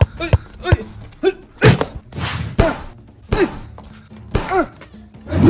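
A quick series of thuds, about two a second, several of them paired with a short pitched sound that falls away.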